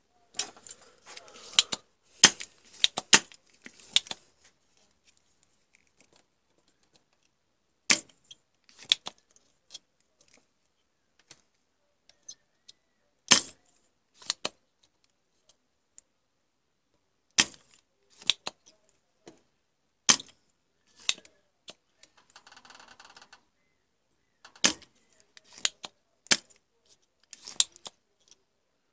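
Irregular sharp clicks and taps from desoldering work, a soldering iron tip knocking against the solder joints and pins of a circuit board. The taps come in small clusters, with a brief scratchy rasp about two-thirds of the way through.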